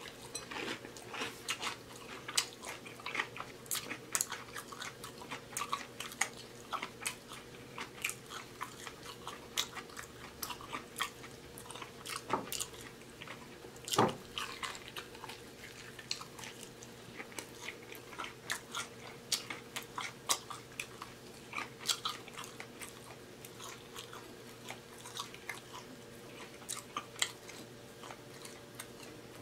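Close-miked biting and chewing of sauce-dipped fried chicken wings: a string of short, wet mouth clicks and smacks, with one louder bite about halfway through, over a faint steady hum.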